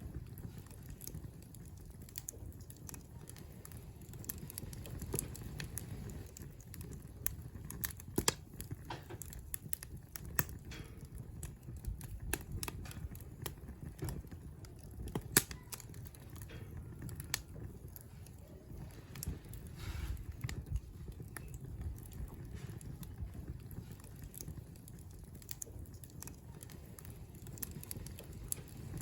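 Wood campfire crackling, with irregular sharp pops and snaps over a low steady rumble; two pops stand out, about 8 and 15 seconds in.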